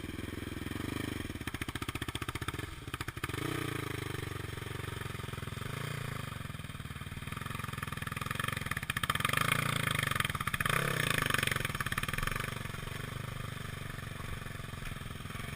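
Single-cylinder dirt-bike engine running, louder for a few seconds past the middle.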